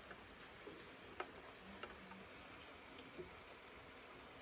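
Light rain in the bush: a faint steady hiss with scattered drops ticking and pattering, a few sharper single ticks standing out, the clearest a little over a second in.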